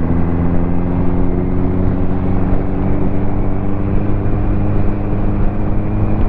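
Ducati motorcycle engine running steadily under way, its pitch creeping up slightly, over a steady rush of road and wind noise.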